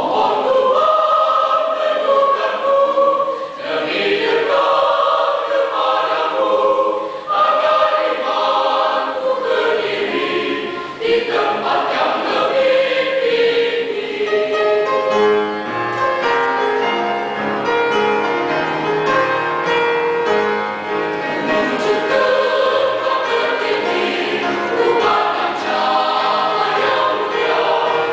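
Mixed choir of men's and women's voices singing a hymn, in phrases of held notes.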